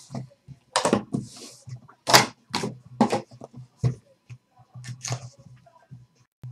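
Hands handling a trading card box and its sealed pack of cards: a string of sharp taps and knocks with short rustles as the pack is lifted out of the box and moved about on the table.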